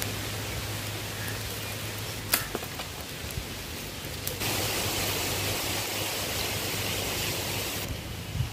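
Open wood fire of dry palm leaves and sticks burning in a stone pit hearth: a steady hiss with a single sharp crackle about two seconds in, the hiss growing louder about four and a half seconds in.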